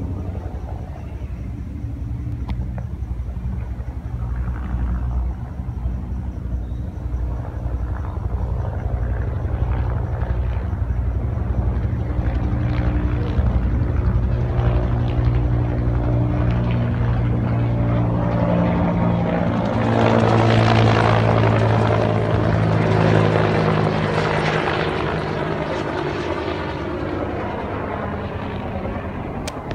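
Military-type helicopter flying over low, with a steady rotor beat and engine tone. It grows louder to a peak about two-thirds of the way through, then begins to fade as it passes.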